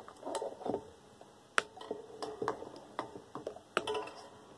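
Irregular sharp clicks and light metallic knocks from the metal parts of a desk fan and a pair of cutters being handled and worked, several a second at times, with some rustling in between.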